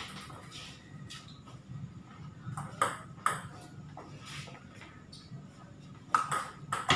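Table tennis ball clicking: a few scattered bounces and taps, then a quick rally from about six seconds in, the celluloid-type ball cracking off rubber bats and the table top in fast succession.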